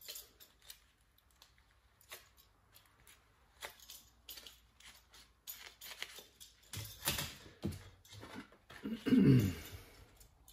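Bench handling sounds while old thermal paste is wiped off a laptop heat sink: a paper tissue rustling and being crumpled, with irregular light clicks and taps of the tool and metal heat sink against the laptop chassis. A short, louder sound falling in pitch comes about nine seconds in.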